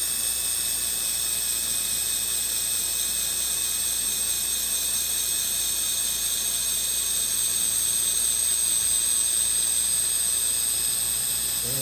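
Surgical power drill running steadily, driving an 8 mm cannulated reamer over the guide pin into the femoral head: an even, high-pitched whine as it cuts through hard, dense bone.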